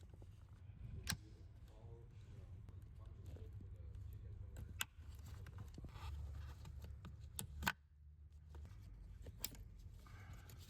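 Plastic automotive wiring-harness connectors being unplugged and handled: a few sharp clicks, the loudest near the middle, amid quiet rustling over a low steady hum.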